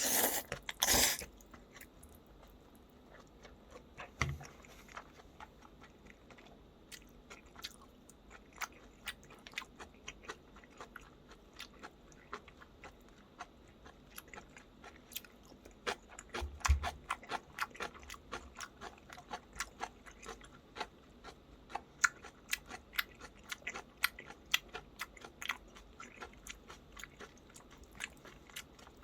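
A person chewing and crunching black-bean-sauce noodles and spicy kimchi close to the microphone, with many small wet mouth clicks. A loud burst comes at the very start, with a low thump about four seconds in and another about halfway through.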